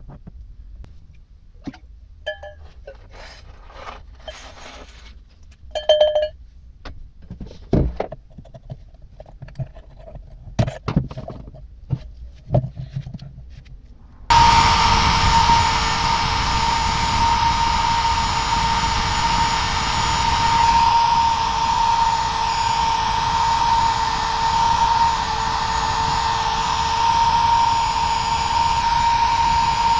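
A metal part being handled and scraped, with scattered clanks, knocks and a few brief metallic rings. About 14 seconds in, an electric drill with a wire brush wheel starts suddenly and runs steadily with a constant whine.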